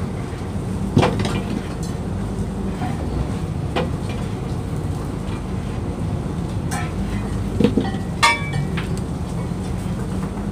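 Fishing boat's engine and net-hauling machinery running with a steady low drone while a lobster gillnet is hauled. A few sharp clinks and knocks from the net gear come through, about a second in, near four seconds, and twice close together later on.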